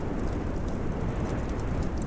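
Fireplace and winter-wind ambience: a steady low rumble of wind with a few faint, sharp crackles of burning wood.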